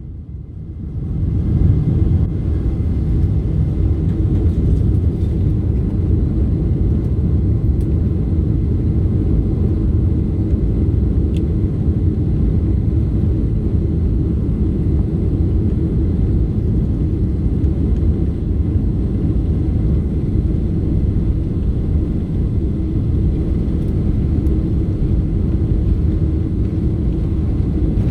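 Airplane in flight, a steady low rumble as heard inside the cabin. It fades in over the first couple of seconds, then holds even.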